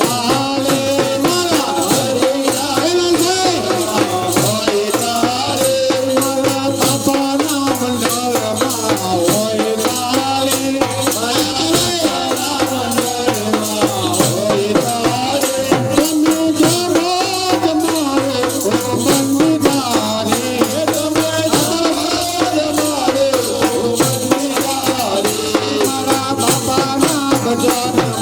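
Gujarati devotional folk music: a melody played over a fast, steady rattle-and-drum beat, with no words sung.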